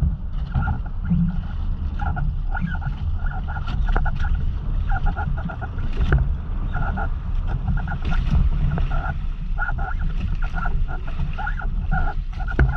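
Small outrigger fishing boat on a choppy sea: a steady low rumble of wind and water. Over it, short high squeaks come in quick clusters again and again, a creaking from the boat or its fishing gear.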